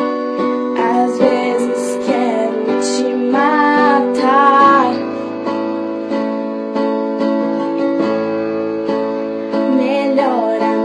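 Music: an instrumental passage of a pop song with guitar and sustained keyboard chords, and a voice singing a few wavering notes without words about four seconds in and again near the end.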